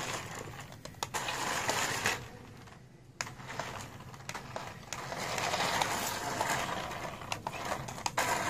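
Rechargeable remote-control toy car driving across a floor mat, its small electric motor and gears whirring with a few light clicks. About two seconds in the whirring stops for about a second, then starts again.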